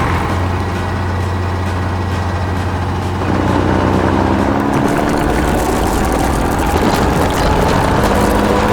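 Heavy machine's engine running steadily, then revving up about three seconds in, its pitch climbing slowly and holding higher.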